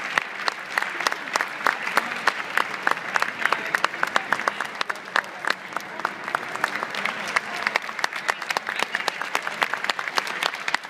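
Crowd of spectators applauding, many hands clapping steadily without a break.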